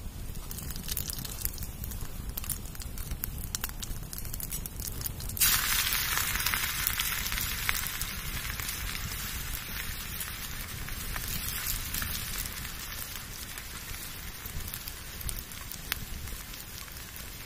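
Wood campfire crackling under a cooking pot. About five seconds in, a loud sizzling hiss starts suddenly from the pot over the fire and slowly dies away.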